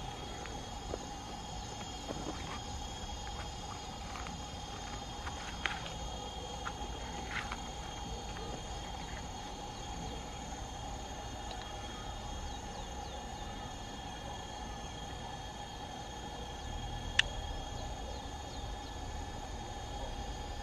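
Steady chorus of insects, a constant high chirring drone with several pitches held together. A few faint clicks, and one sharp tick about three quarters of the way through.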